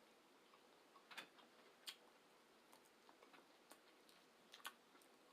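Near silence broken by a few faint, short clicks of eating, about one, two and four and a half seconds in.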